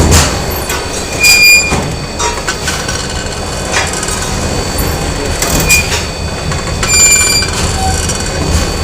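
Factory machinery running with a steady low rumble, overlaid by irregular metallic clanks and brief high-pitched metal squeals and rings.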